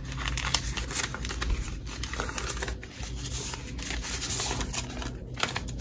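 Paper banknotes handled and counted by hand: crisp rustling and irregular flicks and clicks as a stack of bills is fanned and thumbed through.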